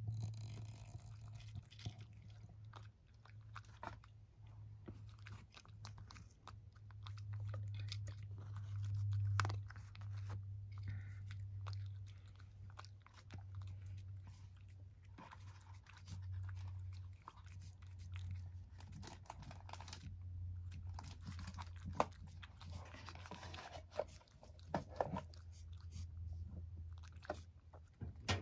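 A cat eating from a wooden tray, crunching and chewing its food with many small clicks of teeth and tongue. A low steady hum runs underneath.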